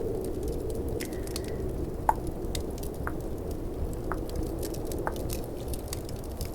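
Tongue clicks, sharp and wet, roughly one a second with the loudest about two seconds in, over a steady bed of snowstorm and fireplace ambience.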